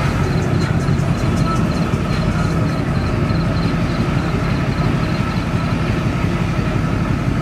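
2004 Duramax LLY diesel pickup engine, straight-piped, running at low speed with a steady low drone, heard from inside the cab. A quick, faint high ticking runs alongside it and stops about six seconds in.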